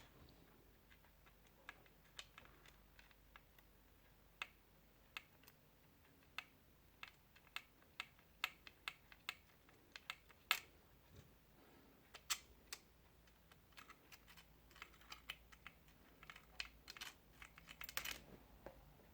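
Irregular light clicks and taps of small parts and tools being handled while a graphics-card cooler bracket is fitted, growing denser near the end.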